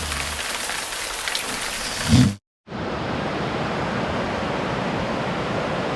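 Heavy rain falling, a steady hiss of rain noise. A little over two seconds in there is a short, loud low thump, then a sudden break, and the rush carries on steadier and duller.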